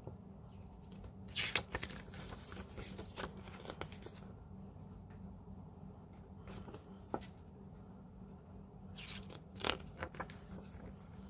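Pages of a CD lyrics booklet being turned and handled. The paper rustles in bursts: one about a second in that runs for a few seconds, a short one about two-thirds through, and another near the end, over a steady low hum.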